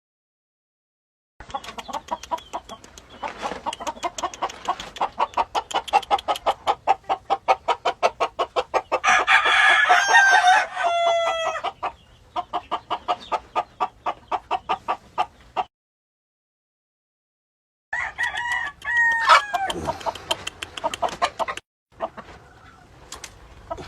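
Gamefowl roosters crowing twice, each crow ending in a falling note, over a fast, steady run of clucking. The sound cuts off abruptly between stretches.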